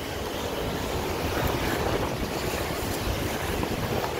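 Steady rumbling of inline skate wheels rolling over a brick-paved path.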